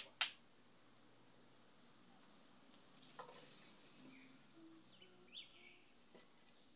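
A potted plant set down on a wooden shelf, a sharp knock about a quarter second in, then a softer knock about three seconds in as a small wooden stand is handled. A few faint bird chirps over otherwise quiet surroundings.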